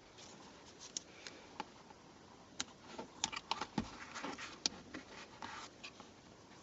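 Quiet handling noise: scattered light clicks and soft rustling, as of small plastic parts or a kit's seat-heater switches being picked up and handled.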